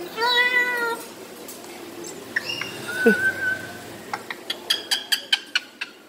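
White cockatoo calling: a drawn-out, meow-like call in the first second, then a short whistle about three seconds in, followed near the end by a quick run of sharp clicks.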